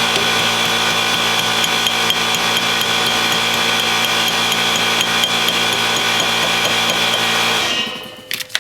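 Impact wrench hammering steadily as it runs the new rear wheel hub's bolts home, stopping near the end, followed by a couple of sharp clicks.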